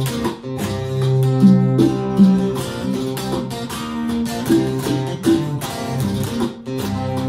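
Electric guitar playing a song's instrumental intro, strummed chords with notes ringing out and changing in a repeating pattern.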